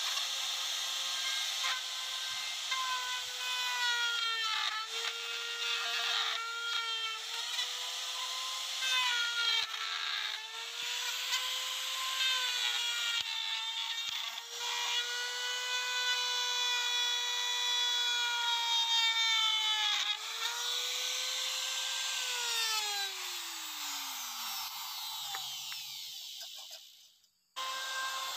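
Compact electric trim router running at high speed while routing into a wooden slab. Its whine sags slightly in pitch each time the bit takes a heavier cut, then recovers. About 22 seconds in it is switched off and winds down in a falling whine. Near the end it is abruptly running again.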